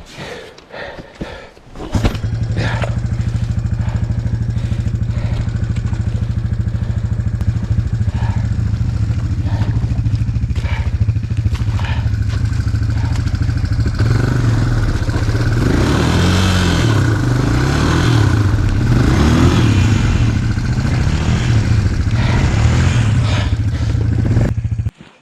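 ATV engine starting up about two seconds in and running steadily, then revving up and down repeatedly while the stuck ATV is worked out of the mud, and shutting off just before the end.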